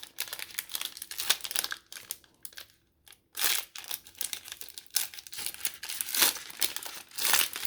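A trading card pack's wrapper being torn open and crinkled by hand, in irregular crackling bursts with louder rips a little after three seconds, around six seconds and near the end.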